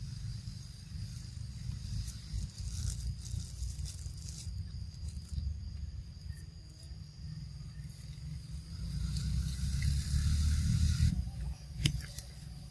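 Outdoor ambience: a low rumble under a steady high insect buzz. About nine seconds in, a louder rushing noise swells for two seconds and then cuts off, followed by one sharp click.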